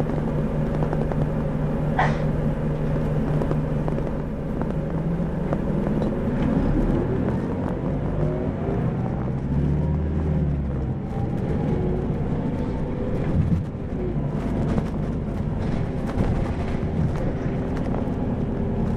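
Isuzu 2PG-LV290N3 city bus running, its four-cylinder diesel ticking over steadily, then pulling away about six seconds in with rising engine and drivetrain whine that climbs and changes pitch as the bus gathers speed. A sharp click is heard about two seconds in.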